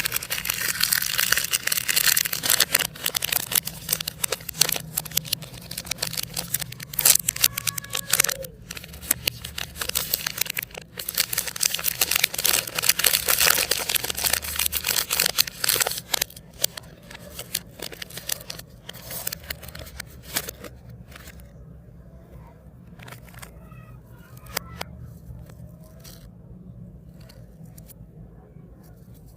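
Plastic biscuit and chocolate wrappers crinkling and tearing as packs are opened, dense and continuous for about the first half, then thinning to scattered rustles. A steady low hum runs underneath.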